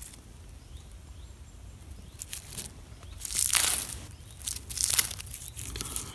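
Thin, still-damp outer bark of a birch being peeled and torn off by hand: quiet for about two seconds, then several short ripping rasps, the loudest about halfway through.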